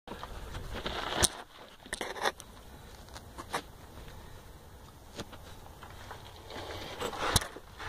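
Handling noise from moving a phone around under a vehicle: rustling and scraping with scattered sharp clicks, the loudest about a second in and near the end.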